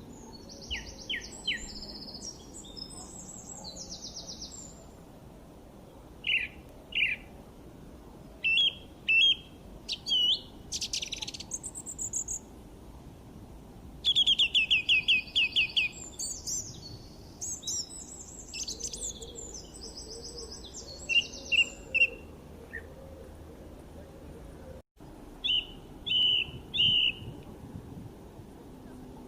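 Songbirds chirping and calling: scattered short high notes and trills, with a fast run of repeated notes about halfway through, over a steady low background hiss.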